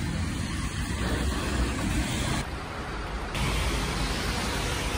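Outdoor city street noise: a steady rush of road traffic, heaviest in the low end, that changes abruptly about two and a half seconds in and again a second later.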